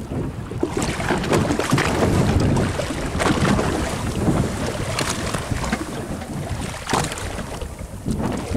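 Wind buffeting the microphone over choppy sea water lapping against a small fishing boat's hull, with a few short sharp slaps.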